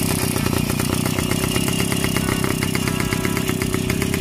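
Minsk M1A motorcycle's 125 cc single-cylinder two-stroke engine idling with the bike on its stand, a rapid, even exhaust beat.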